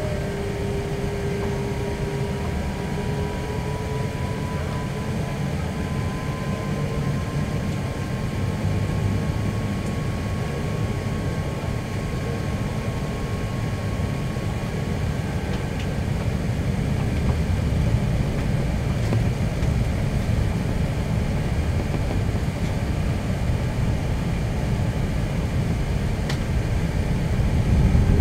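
Cabin noise of an Airbus A380 taxiing: a steady low rumble from its Rolls-Royce Trent 900 engines and the cabin air. Over it a faint whine slowly rises in pitch, and the noise gets a little louder near the end.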